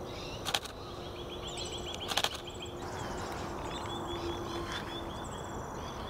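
Camera shutter firing two quick bursts, the first about half a second in and the second about a second and a half later, over high, rapid twittering and trills of small birds.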